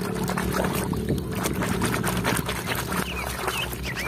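Water splashing and sloshing as a hand scrubs muddy toy cars in a tub of water, with many small irregular splashes over a steady low hum. A few short high chirps come in near the end.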